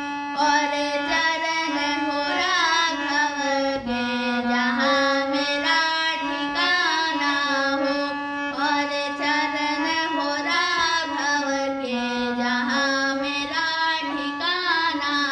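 A solo voice singing a Hindi devotional bhajan to Shri Ram, in long, ornamented melodic lines with wavering pitch.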